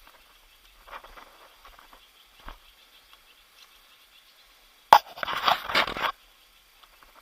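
Scattered footsteps on a trail, then a sudden loud burst of rustling and scraping about five seconds in that lasts about a second.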